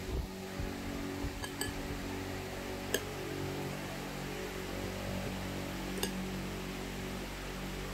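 A metal fork clinks sharply against a ceramic bowl a few times as chicken is pressed into breadcrumbs, with a steady low hum underneath.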